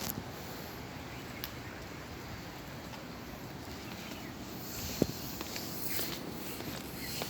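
Footsteps on a hill path over steady outdoor background noise, with scattered light clicks and one sharp tap about five seconds in.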